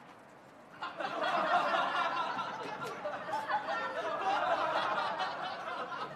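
A crowd laughing, a laugh track, breaking out about a second in and carrying on steadily.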